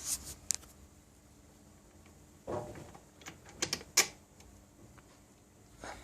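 A few scattered clicks and knocks with a short rattling burst in the middle, like parts being handled; no engine is running.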